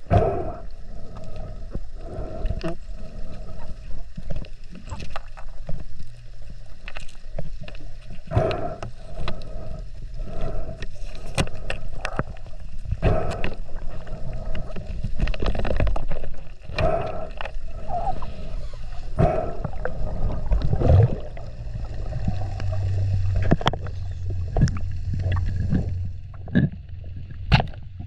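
Underwater sound picked up by a camera mounted on a speargun: muffled water rushing and rumbling, broken by many irregular sharp knocks and thuds. A low steady hum comes in about two-thirds of the way through.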